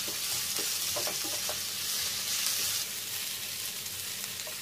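Sliced onions sautéing in hot olive oil in a frying pan: a steady high sizzle that eases a little about three seconds in, with a few soft scrapes of a silicone spatula stirring them.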